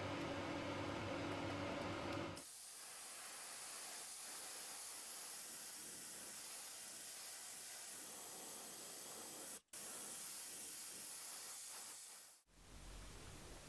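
A steady mechanical hum that cuts off about two seconds in, followed by a steady high hiss of paint spraying, broken once by a brief dropout.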